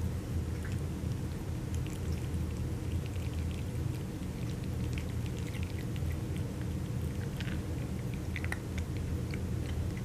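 Two cats chewing and licking ground raw meat and dry kibble off a plastic platter: scattered small wet clicks and crunches, busier in the second half, over a steady low hum.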